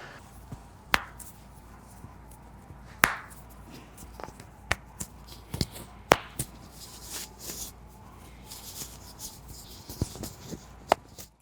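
Soft rustling of hands, clothing and table with about six sharp clicks scattered through it, the loudest about three seconds in, during hands-on chiropractic treatment.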